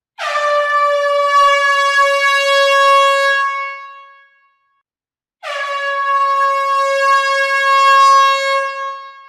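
Horn (corneta) sounding two long blasts at one steady pitch, each starting abruptly, lasting about four seconds and fading away, with a short gap between them.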